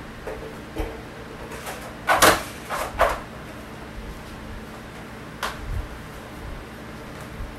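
Plastic spiral telescopic stool being pulled out from its flat disc: a quick run of plastic clattering and clicks about two to three seconds in, then a single sharp knock a couple of seconds later.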